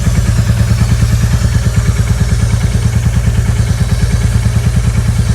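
Royal Enfield Classic 350 Reborn's single-cylinder engine idling with a steady, even beat.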